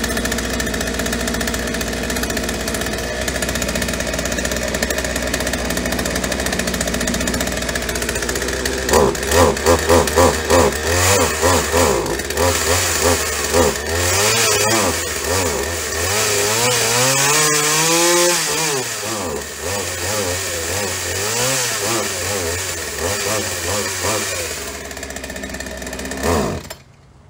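Snapper S1838 chainsaw's Poulan-built 42cc two-stroke engine running: a steady idle, then from about nine seconds in a quick series of throttle blips and several longer revs that rise and fall, before it is shut off abruptly near the end. Its carburettor, low-speed screw included, still needs tuning before it will take throttle properly.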